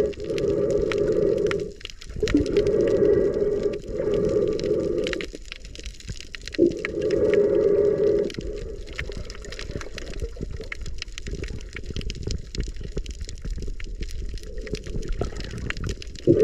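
Underwater sound through a submerged camera: a snorkeler's breathing through the snorkel, a low hollow drone in spells of one to two seconds with short gaps, which stops a little past halfway. Scattered crackling clicks run throughout.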